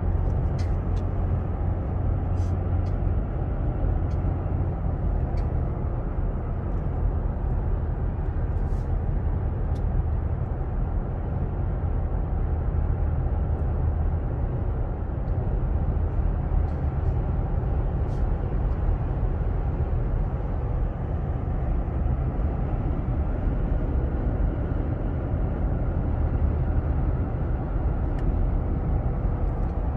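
Steady low road and engine noise heard from inside the cabin of a 2021 Toyota Tacoma TRD Off Road pickup cruising on a highway.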